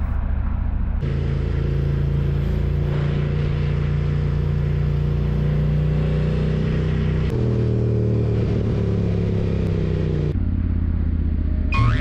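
BMW F900R motorcycle's parallel-twin engine running at a steady road speed, with wind and road noise. Its note changes abruptly a few times, dropping in pitch about seven seconds in.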